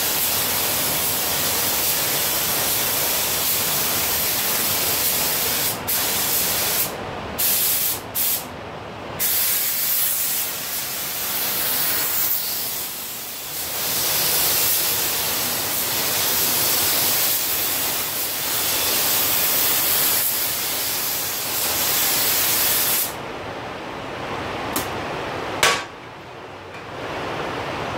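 Compressed-air spray gun hissing as it sprays automotive paint, in long passes broken by a few short stops when the trigger is let go. Near the end the spraying stops, leaving a lower rush of air, cut by one short blast of the gun.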